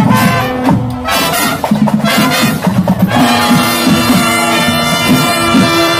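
Marching band playing: a brass section sounding a melody over a moving low bass line, with drum hits through it.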